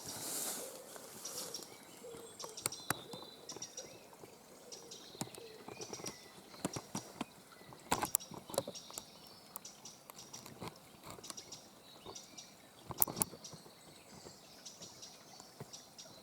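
Small birds singing and calling in short repeated high phrases. Scattered sharp clicks and knocks from gear being handled close by, the loudest about eight and thirteen seconds in.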